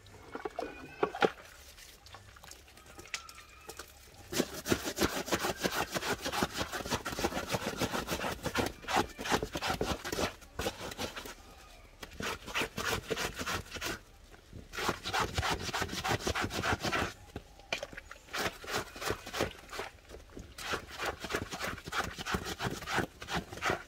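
Rapid, repeated rubbing strokes in runs of a few seconds, broken by short pauses.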